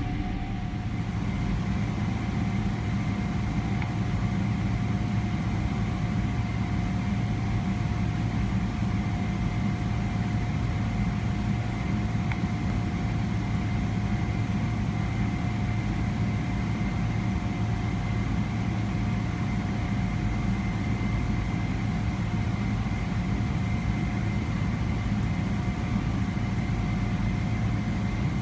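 Steady cabin drone of a Boeing 777-300ER taxiing, its GE90 engines at low taxi power: a low hum with a couple of faint steady whining tones over it.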